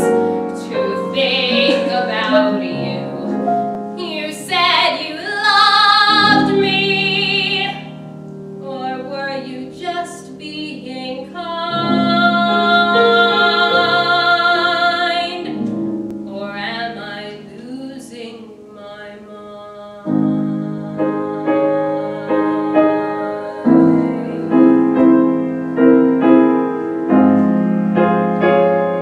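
Solo female voice singing a slow musical-theatre ballad with piano accompaniment. Long held notes with vibrato come around the middle, and in the last third the piano plays steady repeated chords under the voice.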